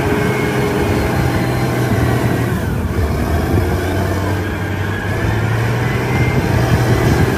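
Caterpillar 990 wheel loader's diesel engine running steadily under load as the loader lifts and tips its bucket into a dump truck.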